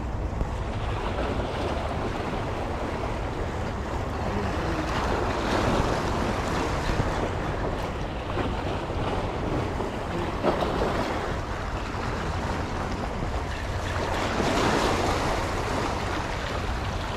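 Sea waves washing in, the rush of water swelling louder twice, with wind rumbling on the microphone.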